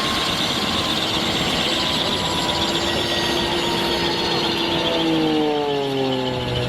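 Mi-28 attack helicopter's turbine whine and rotor noise heard at close range, steady and loud, with several tones falling in pitch from about five seconds in.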